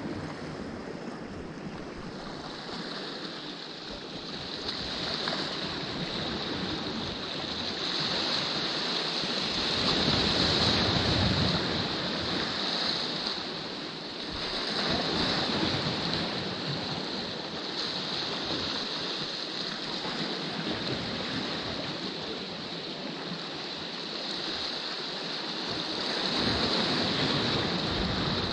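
Sea waves washing against rocks, the wash swelling and easing every few seconds.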